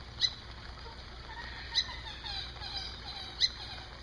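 Captive birds calling. A short, sharp, high call comes three times, about every second and a half, over softer, lower falling calls from the waterfowl on the pond.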